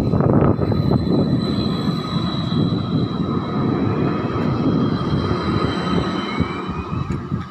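Ankeng Light Rail tram pulling slowly away from the platform at close range: a dense low running noise with a steady whine over it, and a tone that rises in pitch near the end as the tram gathers speed.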